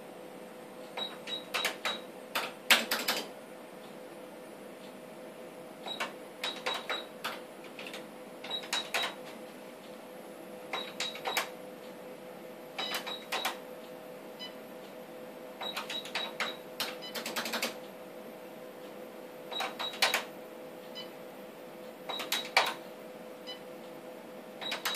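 Clusters of sharp plastic clicks every two to three seconds, like keys and buttons being pressed on an ultrasound machine's console, over a steady hum.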